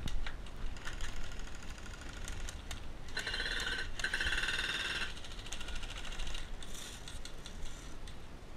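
Airsoft electric rifles firing during a skirmish: scattered sharp snaps of single shots and BB hits, then a stretch of rapid full-auto fire, a fast buzzing rattle, from about three to five seconds in.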